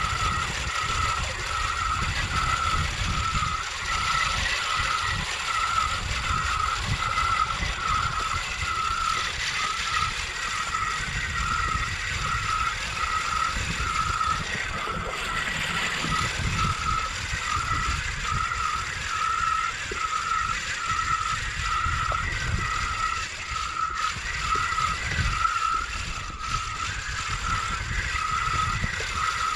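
Hobie kayak pedal drive being pedalled, squeaking at an even rhythm of about one and a half squeaks a second, over low wind and water rumble.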